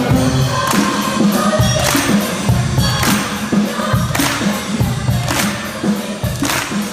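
Choir and orchestra performing, with strong percussion strokes about once a second over a steady bass line.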